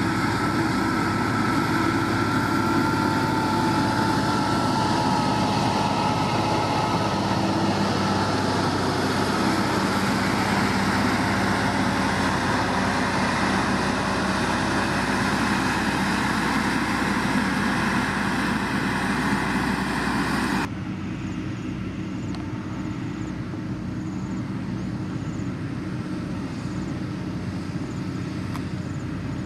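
SANY motor grader's diesel engine running under load as its blade pushes and spreads gravel, with a Sakai road roller working alongside: a steady engine drone mixed with gravel hiss. About two-thirds of the way through, the sound drops suddenly and turns duller.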